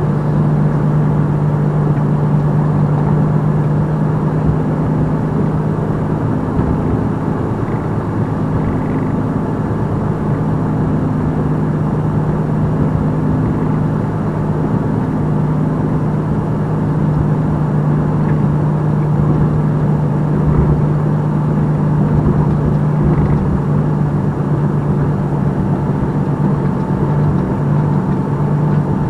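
Semi-truck's diesel engine running steadily at low speed: a continuous low drone.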